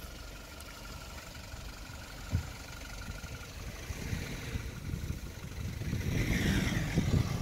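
Toyota Hilux pickup's engine running low, then revving harder and louder from about four seconds in as it strains against deep mud with its wheels stuck. A single knock about two seconds in.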